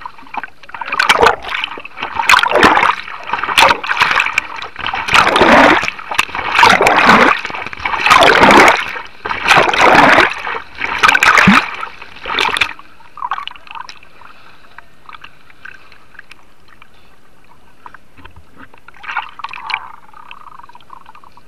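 River whitewater splashing around and over an inflatable raft. A run of loud surges comes roughly one a second for about twelve seconds, then settles to a low steady rush of water with a couple of smaller splashes near the end.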